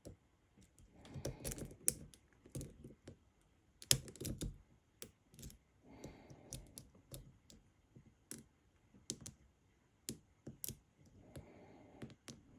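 Light, irregular clicks and scrapes of a lock pick working the pins of a pin-tumbler lock held under tension, as spool pins are lifted toward a deeper false set.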